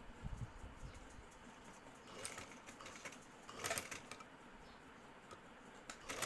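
Domestic sewing machine stitching in a few short bursts of rapid clicking, about two seconds in, again near four seconds, and once more at the end.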